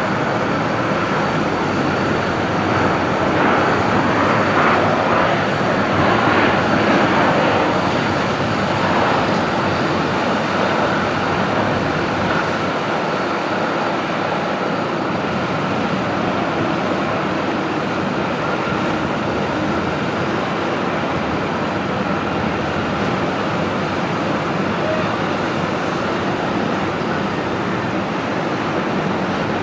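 Boeing 737-800's CFM56 jet engines on landing: a broad roar with a steady whine, swelling for a few seconds just after touchdown, then settling to an even, lower noise as the jet rolls out along the runway.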